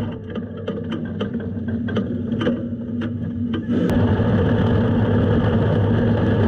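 Sprint car's V8 engine running at light, steady throttle under caution, heard from the car's onboard camera. Sharp pops and clicks come through over the first few seconds; about four seconds in the engine note turns louder and holds steady at one pitch.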